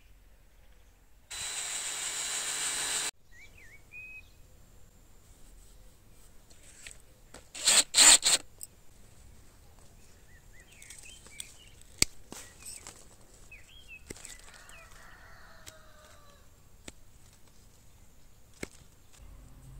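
A cordless drill runs steadily for about two seconds near the start, drilling into a pear branch to make a graft. About eight seconds in come three short loud bursts, the loudest sounds, followed by scattered sharp clicks, with birds chirping now and then.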